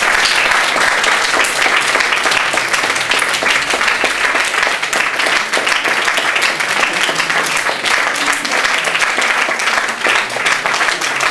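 Audience applauding: many hands clapping at once in a dense, steady wash of claps.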